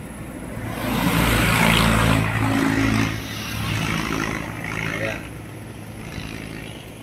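A motorcycle passing close by on the road: its engine and tyre noise swell over the first few seconds, loudest between about one and three seconds in, then fade away.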